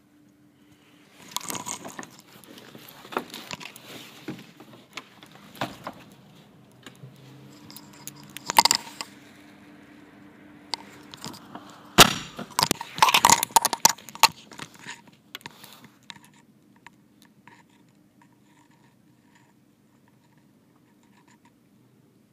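Handling noise from a phone being moved about: irregular rubbing, scraping and knocks, the sharpest about a third and halfway through. After about sixteen seconds only a faint steady hum is left.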